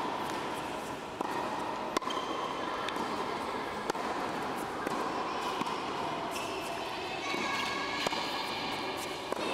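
Tennis ball being struck and bouncing on an indoor hard court, a few sharp hits several seconds apart, the loudest about two seconds in, ringing in a large hall over a background of voices.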